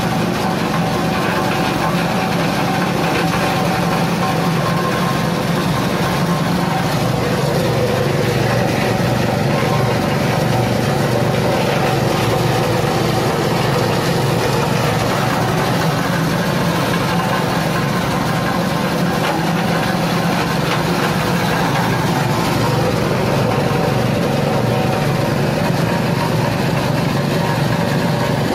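Small petrol engine running steadily, driving a coconut-husk shredder that grinds husk into coir fiber.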